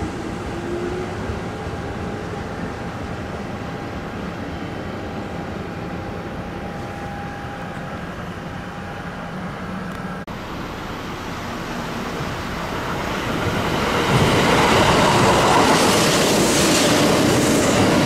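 Kintetsu electric train running at a station platform: an Urban Liner limited express pulling away, with a steady hum. After a cut, a train's running noise swells to its loudest in the last few seconds.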